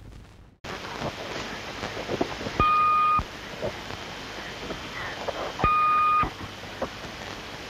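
Old cassette tape starting to play about half a second in: steady tape hiss with scattered faint crackles. Two short, steady beeps about three seconds apart are the loudest sounds.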